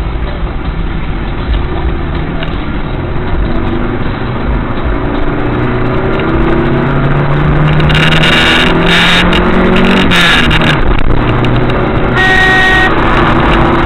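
Car engine and road noise heard from inside the cabin, the engine pitch climbing as the car accelerates, with a few short bursts of hiss partway through. A car horn honks once, briefly, about twelve seconds in, as another car comes close alongside.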